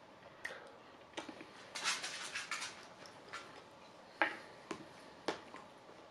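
Eating sounds: a metal spoon clicking against a plastic bowl several times, with a close run of rapid clicks and mouth smacking about two seconds in.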